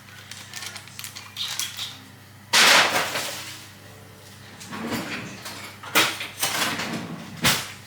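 Kitchen handling clatter: a loud clattering knock about two and a half seconds in that rattles on for about a second, then three sharper knocks spread through the rest.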